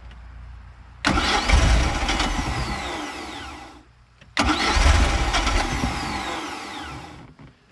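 MerCruiser 3.0 L four-cylinder sterndrive engine cranked on its starter twice, each attempt about three seconds long, with a falling whine in each. This is the first start attempt on a freshly fitted replacement carburetor.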